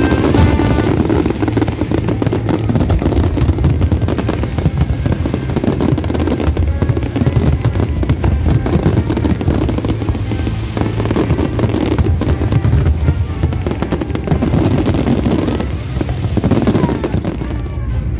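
Fireworks going off in rapid succession, a dense run of bangs and crackles throughout, over music.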